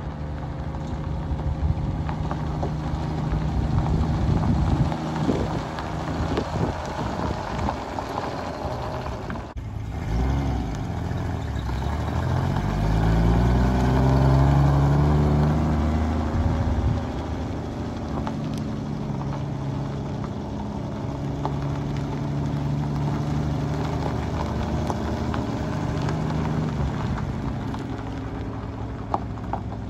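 1954 Kaiser Darrin's Willys six-cylinder engine running as the roadster drives at low speed. About ten seconds in the engine note rises as it accelerates and is loudest as the car passes close, then settles to a steady run, with tyres rolling on gravel underneath.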